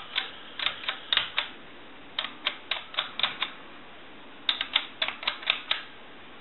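An original Mickey Mouse telephone being dialed. Sharp mechanical clicks come in three irregular runs of five to seven, separated by short pauses, as the digits of a number are entered.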